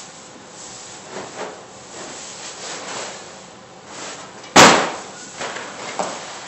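An 80-pound homemade pellet-filled sandbag, thrown over a Smith machine bar, lands with one loud, sharp slam about four and a half seconds in. Before and after it come a few softer scuffs and knocks as the bag is lifted and handled.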